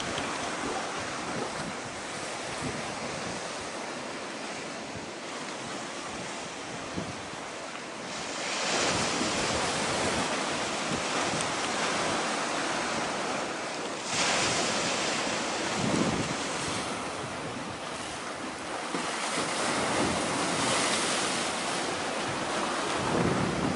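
Wind gusting on the microphone over the wash of sea waves. The hissing noise swells louder in several gusts, with low buffeting thumps now and then.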